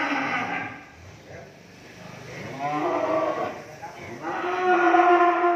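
Cattle mooing: one call fading just after the start, another around the middle, and a long, steady moo starting about a second before the end.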